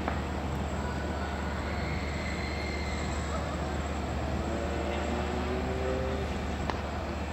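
Steady low rumble of a running vehicle, most likely a train, going on without a break, with faint higher tones drifting through about midway.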